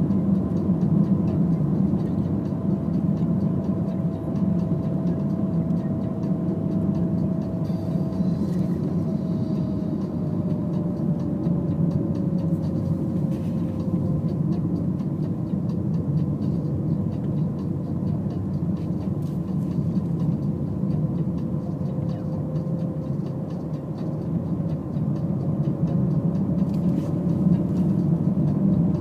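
Car driving along a country road, heard from inside the cabin: steady engine and tyre noise, with a faint whine that slides lower in pitch about ten seconds in and rises again near the end.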